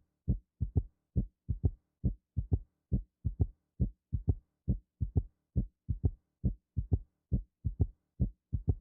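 Heart sounds with a third heart sound (S3): a steady three-beat 'Kentucky' gallop, lub-dub-ta, repeating about once a second. This is the ventricular gallop, made by rapid filling of the ventricles in early diastole just after S2.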